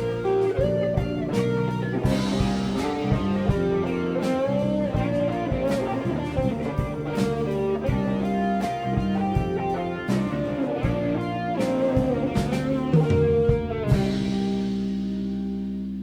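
Live rock band playing an instrumental passage, an electric guitar carrying the melody over bass and drum kit, with a cymbal crash ringing out about fourteen seconds in.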